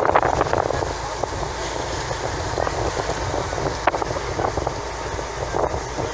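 Water rushing and splashing along the hull of a moving boat over the steady rumble of its engine, with wind buffeting the microphone.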